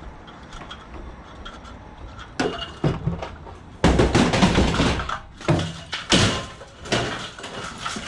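Scrap household appliances being loaded and shifted about: a run of heavy thuds and metallic clattering that starts about two and a half seconds in and is loudest around the middle, typical of a washing machine toppling over among other white goods.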